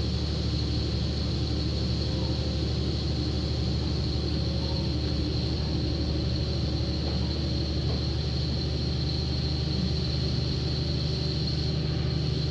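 Inside a KiHa 40 diesel railcar under way: the diesel engine running with a steady low drone over the even running noise of the train on the rails.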